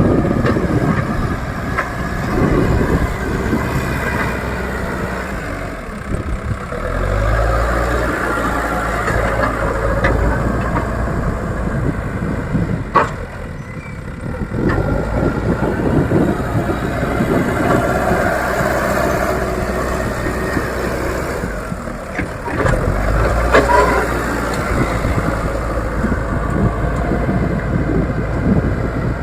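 Diesel engine of an old Leyland Deere 435 backhoe loader running steadily while levelling ground. It pulls harder twice, about seven seconds in and again past twenty-two seconds.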